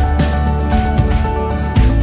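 Background music with a steady beat, about two a second, over a heavy bass line.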